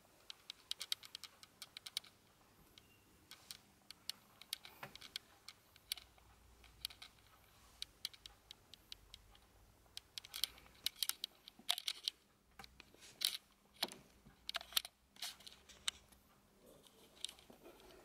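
Wooden Jenga blocks clicking and clacking against each other as the pile is disturbed: irregular light knocks in clusters, busiest in the second half.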